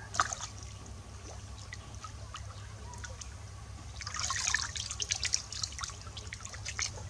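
Small splashes and drips of water, with a denser patch of splashing about four seconds in.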